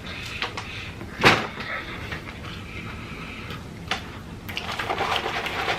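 Close-miked eating: a person chewing McDonald's French fries, with scattered sharp mouth clicks, one loud one about a second in, and denser crackling near the end.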